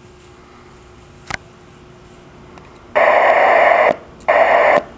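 Static hiss from a GE Phoenix SX VHF mobile radio's speaker, in two bursts about three seconds in, the first about a second long and the second about half a second. A single click comes just over a second in.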